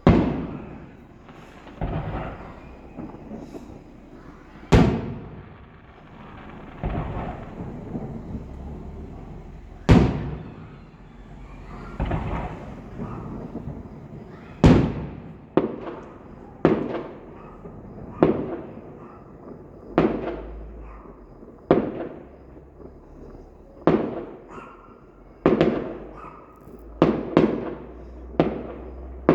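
Fireworks going off: sharp bangs, each followed by a fading echo. They come a few seconds apart at first, then about once a second through the second half.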